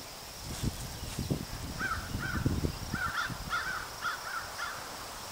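A bird giving a quick series of about seven short, repeated calls, starting about two seconds in, over irregular low thumps.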